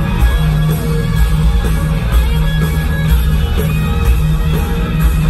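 Live rock band playing: electric guitars over bass and drums, with a repeated low riff and regular cymbal hits.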